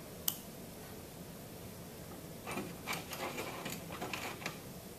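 Small pump parts being handled on a worktable: one sharp click about a third of a second in, then a few short scrapes and rustles in the second half as seals and rings are picked up.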